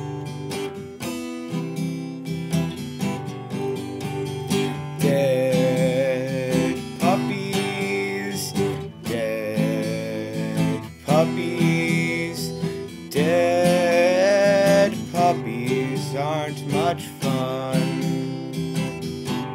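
Acoustic guitar strummed steadily in chords, with a man singing a verse over it from about five seconds in.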